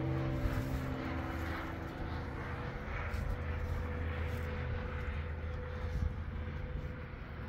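A steady, distant engine drone with a low hum and a thin higher tone held throughout.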